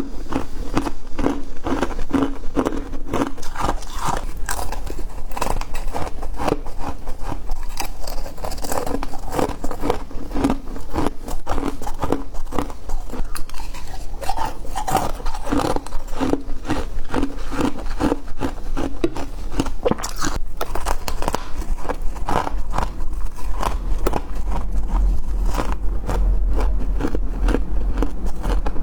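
Freezer frost being bitten and chewed close to the microphone, a dense crackling crunch that goes on without a break. A low hum grows stronger in the later part.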